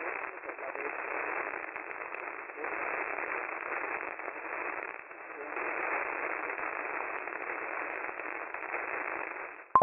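Radio static: a steady, narrow-band hiss with crackle, swelling and fading in level, as from a receiver picking up no clear signal. A sharp click comes near the end.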